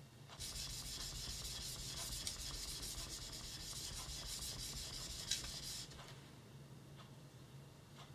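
Yanagiba blade sharpened with light pressure on a small natural blue whetstone: a gritty hiss of steel on stone that starts just after the beginning and stops about six seconds in.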